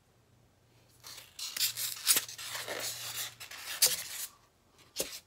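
Packaging rustling and scraping as an item is pulled from a cardboard box and unwrapped. It comes in uneven spells with a couple of sharper crinkles, then a short tap near the end.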